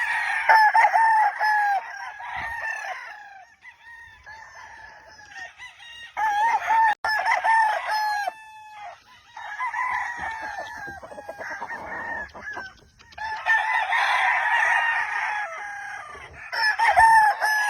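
Several gamefowl roosters crowing in turn, their long calls overlapping one another, in four or five bouts of a few seconds each.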